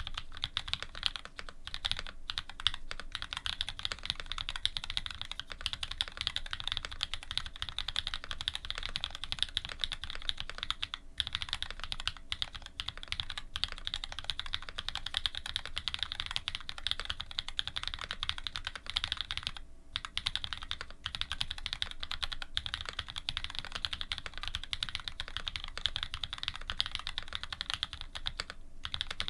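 Fast, continuous typing on a Dolphin linger re custom mechanical keyboard with lubed Cherry Black linear switches fitted with Cream stems, an aluminium plate and GMK keycaps. There are a few brief pauses in the typing, about a third and two-thirds of the way through and again near the end.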